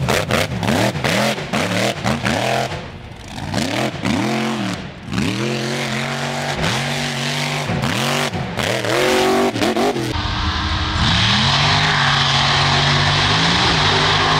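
Off-road race truck engines revving up and down over and over as the trucks power through dirt turns. About ten seconds in it changes abruptly to an engine held at steady high revs over a loud hiss.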